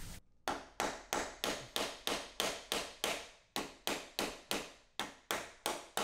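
Claw hammer striking a Ryobi door latch mortising tool in quick, even taps, about three a second, each dying away fast. The blows drive the tool's rounded chisel into the door edge to mark the outline of the latch plate.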